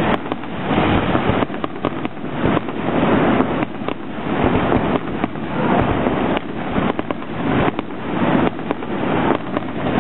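Aerial fireworks display: shells launching and bursting in quick succession, a near-continuous barrage of bangs and crackle.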